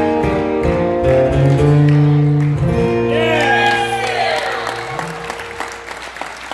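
Two acoustic guitars strumming the closing chords of a country song. The last chord rings out from about three seconds in and fades, while a voice gives a short gliding call over it.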